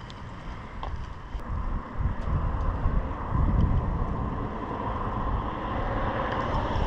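Wind buffeting the microphone: a noisy low rumble that grows louder about two seconds in.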